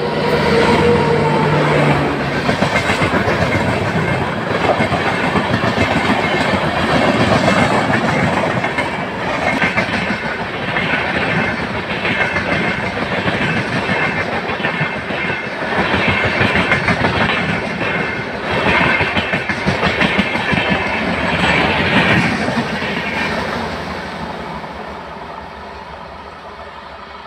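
Express passenger train hauled by a WAP-7 electric locomotive passing at speed, the horn's last note falling away in the first second or two. The coaches run by with a loud, steady rush and rhythmic clickety-clack of wheels over the rail joints. The sound fades over the last few seconds as the train recedes.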